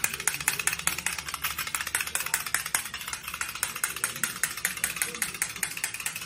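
Small battery-powered toy running on a tile floor: a fast, even clicking of about eight to ten clicks a second over a steady low motor hum.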